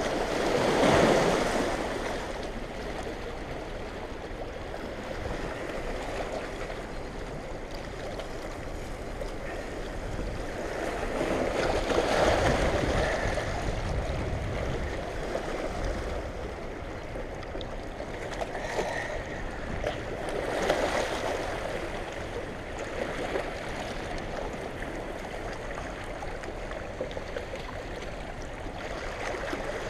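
Fast, turbulent dam-release water in a tailrace rushing past and washing against rock riprap, swelling louder about a second in, around twelve seconds and around twenty-one seconds.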